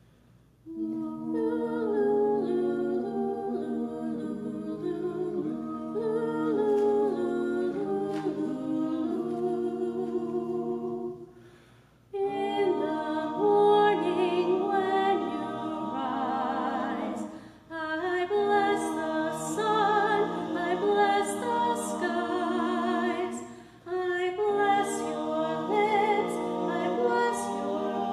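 Vocal quartet of two women and two men singing a cappella in harmony. The singing begins about a second in and comes in phrases broken by brief pauses for breath.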